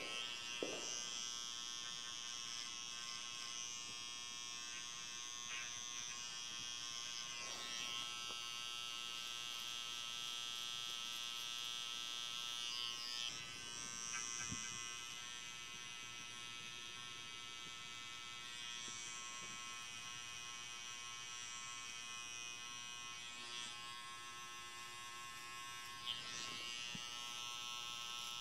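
Cordless Wahl hair trimmer running steadily with a high buzzing whine as it cuts short hair close around the ear.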